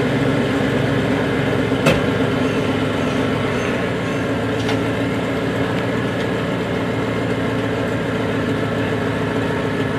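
Ford pickup truck's engine idling steadily, with a single sharp knock about two seconds in.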